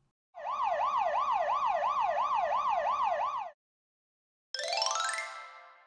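Cartoon fire-truck siren sound effect: a siren wailing up and down about three times a second for about three seconds, then cutting off. About a second later a single rising swoop of tone plays and fades away.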